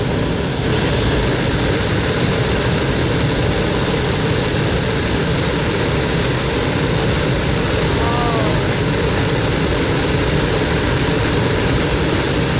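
Hot air balloon's propane burner firing in one long, steady, loud rushing burn that does not let up.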